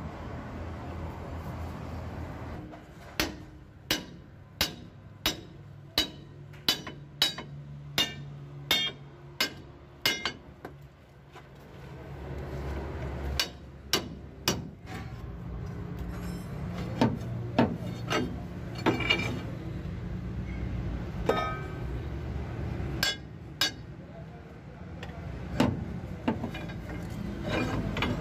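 Hammer striking a steel punch held against a truck's leaf-spring U-bolt: metal-on-metal blows. A run of about a dozen evenly paced strikes, roughly three every two seconds, is followed by scattered single strikes.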